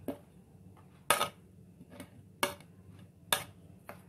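A spoon clinking and scraping on a plate as chopped cabbage is knocked off into a glass bowl: about five short clinks, roughly a second apart, the loudest about a second in.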